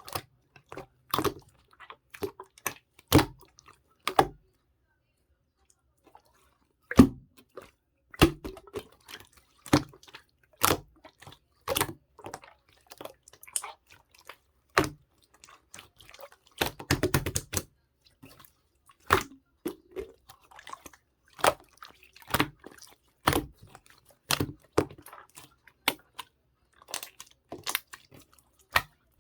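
Slime being squeezed and poked by hand, giving irregular wet clicks and pops, with a brief pause a few seconds in and a quick run of pops a little past halfway.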